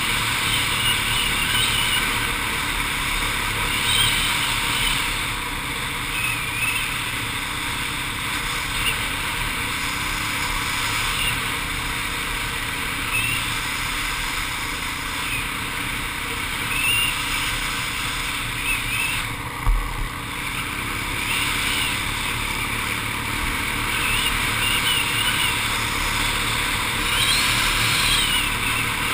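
ATV engine running while the quad is ridden, under steady wind rush on the camera's microphone, with small rises and falls in pitch. A single thump about two-thirds of the way through.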